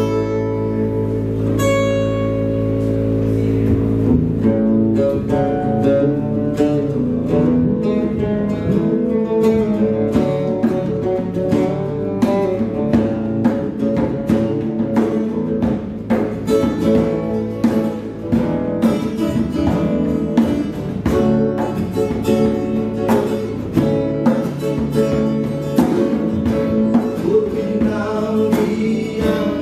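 Live acoustic guitar and hand drum playing together, with a man singing. The opening seconds are a ringing held chord; from about four seconds in, the drum comes in with a steady beat under the strummed guitar.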